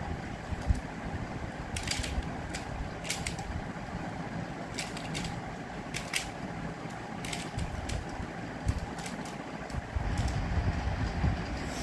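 Pyraminx puzzle being turned quickly by hand in a timed solve: quick plastic clicks that come in short clusters, over a steady low rumble.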